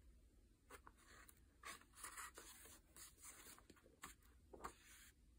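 A few short, faint rustles of paper pages being turned in a softcover workbook.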